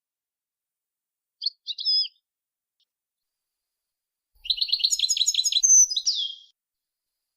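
A caged songbird singing from a song-tutoring recording: a short high phrase, then a longer burst of rapid repeated notes that ends in a falling note.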